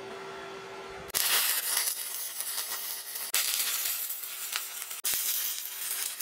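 Electric welding arc on steel plate, crackling and hissing as a bead is laid. It strikes about a second in and breaks off briefly twice, after a steady hum.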